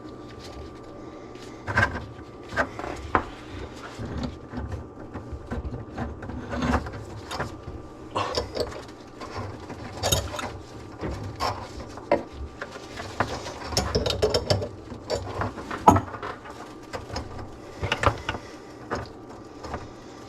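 Irregular clicks, knocks and rattles of tools and pipe fittings being handled during plumbing work, with a few sharper knocks among them.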